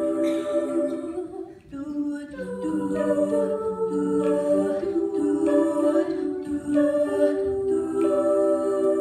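Middle school a cappella choir singing held harmony chords with no recognisable words. The sound dips briefly about a second and a half in, then the voices come back in with the chord moving step by step.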